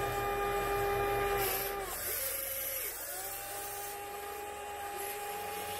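Electric motors of a 1/14-scale RC Volvo EC160E excavator whining as it works. The whine rises in pitch as each movement starts and falls as it stops: one run ends about two seconds in, a shorter, lower one follows, and a longer one starts about three seconds in.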